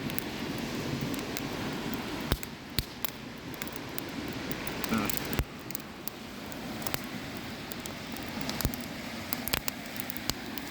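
Fire burning a plastic microwave fan shroud: a steady hiss with scattered sharp crackles and pops.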